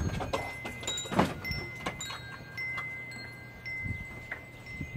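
Wind chime ringing: several clear high metal tones struck at irregular moments, each ringing on, with a few soft knocks and rustles between.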